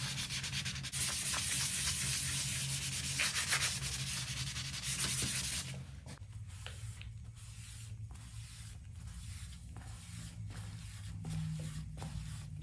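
A scrub sponge is rubbed hard back and forth over a soapy, textured shower wall, making a dense scratchy scrubbing sound. It stops abruptly about halfway through and gives way to softer wiping with a few light taps.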